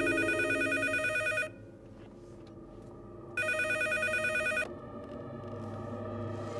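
Telephone ringing twice, about two seconds apart, each ring a fast trilling tone, over a steady low hum.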